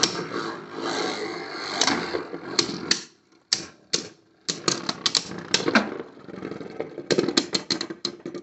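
Two Beyblade Burst spinning tops battling in a clear plastic stadium: rapid clicking and clattering as they strike each other and the stadium wall, with a short lull about three seconds in before another flurry of hits.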